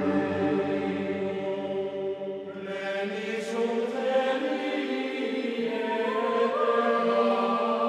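Background music of a choir chanting in long held notes, moving to new chords every few seconds.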